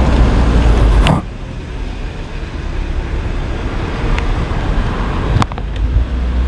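Road and engine rumble of a moving car, heard from inside the car. It drops suddenly to a quieter rumble about a second in, and there is a single click near the end.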